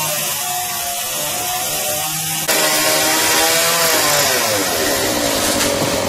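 Chainsaw running while cutting up a fallen banyan tree. It is steady at first, turns abruptly louder about two and a half seconds in, then its pitch sags and wavers as it works through the wood.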